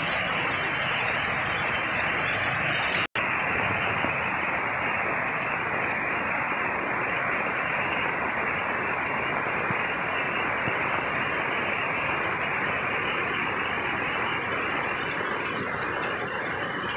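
Heavy tropical rain pouring down, a steady dense hiss. It cuts out for a moment about three seconds in and comes back duller, with less of the high hiss.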